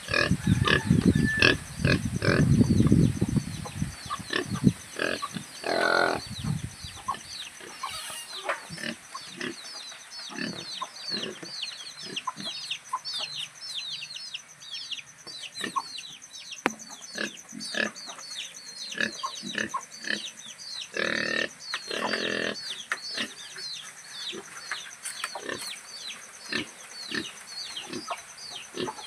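Farm pigs heard in their pen, with a loud low rumble in the first few seconds and two harsher one-second calls later on. A steady run of short, high, falling chirps, several a second, continues through most of it.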